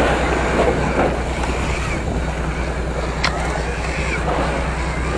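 Fishing boat's engine running with a steady low hum under wind and sea water splashing alongside the hull. A single sharp click about three seconds in.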